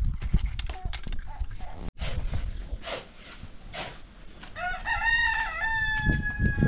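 A rooster crowing once: a long pitched call that begins about two-thirds of the way in, wavers, holds steady and then falls away. Scattered knocks and rustling come before it.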